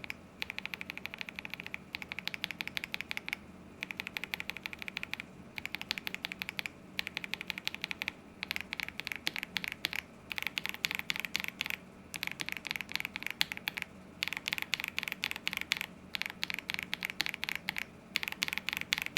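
Typing on a mechanical keyboard with Akko Radiant Red linear switches in a polycarbonate-plate KBD67 Lite, fast runs of keystrokes broken by short pauses every second or two. Lubed and stock switches are heard in turn; the lubed ones sound softer.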